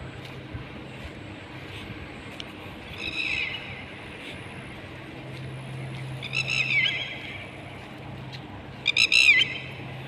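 Three short, high-pitched animal calls, each sliding down in pitch, about three, six and nine seconds in, the last the loudest, over a steady low hum.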